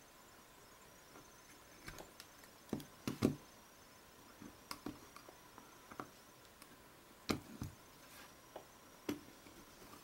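Plastic prying tool worked around the seam of a Samsung Galaxy Nexus, with irregular small clicks and snaps as the rear housing's plastic clips let go of the front housing.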